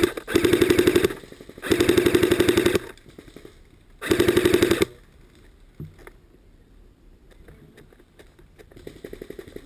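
Airsoft rifle firing three full-auto bursts close by, each about a second long: a rapid stream of clicks over a steady whine. A fainter short burst follows near the end.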